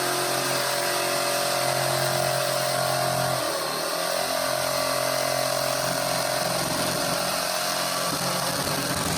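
Black and Decker jigsaw running steadily as its blade cuts through wood, the motor's pitch dipping briefly about three and a half seconds in.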